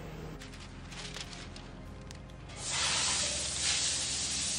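Masking paper and masking tape being handled: light crinkling at first, then from about two and a half seconds in a loud, uneven rustling hiss as tape and paper are pulled and pressed down.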